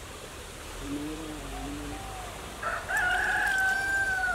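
A rooster crowing: one long call starting a little past halfway, its held note dipping slightly as it ends.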